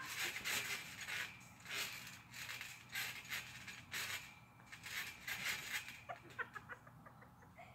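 Backyard trampoline's springs and mat creaking faintly under bouncing bodies, in short bursts about once a second.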